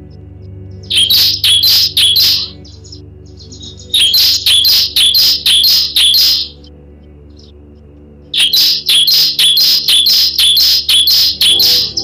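Bar-winged prinia (ciblek) singing in three bouts of loud, sharp repeated notes, about three a second, each bout longer than the last: roughly four, then seven, then eleven notes.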